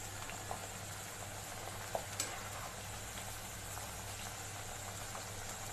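Masala-coated corn kernels deep-frying in a kadhai of oil on medium heat: a steady sizzle, with a few faint light clicks.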